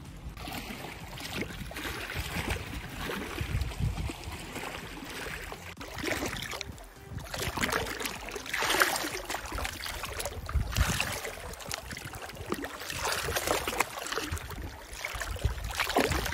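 Small lake waves washing and splashing against a shoreline rock, surging in again every couple of seconds.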